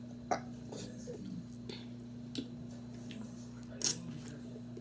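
Mouth sounds of eating a piece of fruit: a few soft lip and tongue clicks and smacks, with a louder wet suck about four seconds in, over a steady low hum.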